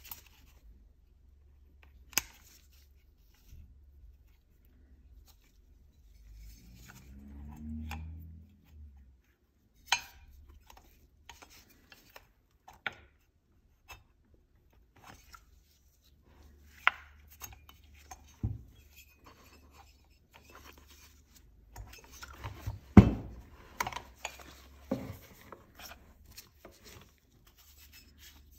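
Scattered clicks, taps and knocks of a Husqvarna chainsaw's cylinder and housing being handled and turned over on a workbench as the cylinder is seated on the new piston, with the loudest knock about 23 seconds in. A short low hum comes about seven seconds in.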